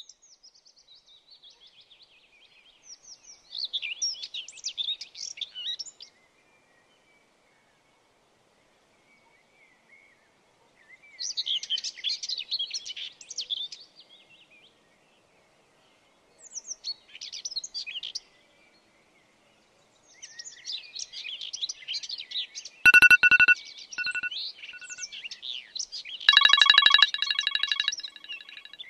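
Birds chirping and singing in several short bursts. Near the end a smartphone alarm goes off with a few short beeps, then a louder run of ringing tones.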